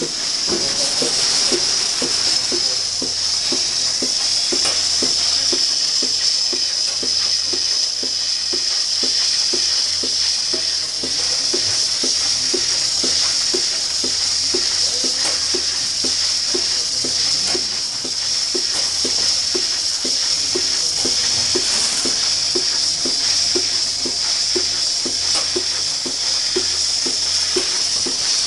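Lely Astronaut 4 milking robot running during milking: a steady hiss of air and vacuum with a regular pulsing beat, about two a second, from the milking pulsation.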